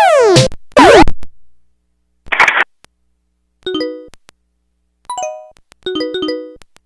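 Electronic ringtones and sound effects from a Samsung SPH-A840 phone's speaker. In the first second, synth tones sweep up and down across each other. About two seconds in there is a short burst of hiss. From about three and a half seconds, four short bell-like chime notes ring and fade.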